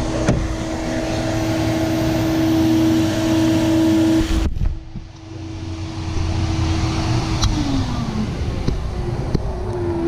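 Vacuum seeder running, its blower giving a steady, loud machine hum with a held tone while seeds drop through the tubes into a plug tray. The sound breaks briefly about halfway. The tone glides down in pitch about three-quarters of the way in, and again near the end.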